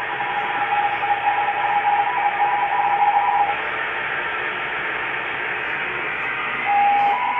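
Amateur radio HF receiver hissing with band noise, with two steady tones near 800 Hz and 1 kHz from signals on the band, typical of CW (Morse) contest traffic. The tones fade out about three and a half seconds in, leaving plain static, and come back near the end.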